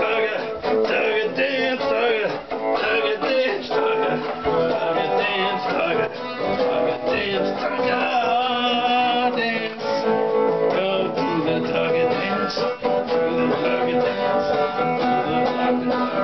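Guitar being strummed and played continuously, a run of chords and notes.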